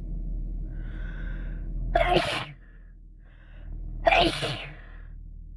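A person sneezes twice, about two seconds apart, each sneeze preceded by a quick sharp intake of breath.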